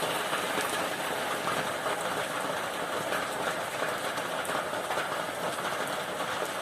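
Heavy rain falling steadily during a thunderstorm: an even hiss of many small drop impacts.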